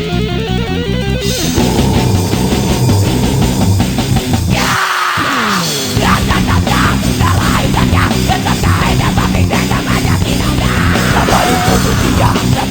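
Instrumental nu-metal with distorted electric guitars, bass and drums. About five seconds in there is a brief break where the low end drops out and a falling sweep is heard, then the full band comes back in.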